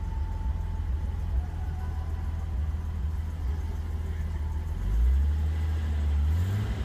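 First-generation Toyota Celica XX's M-series inline-six idling, heard from inside the cabin: a low, steady rumble that swells louder for about a second and a half around five seconds in.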